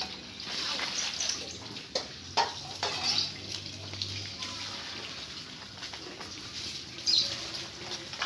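Sheep and goats eating wet comboran mash from a wooden trough: moist munching and slurping, with a few sudden knocks against the wooden boards in the first few seconds.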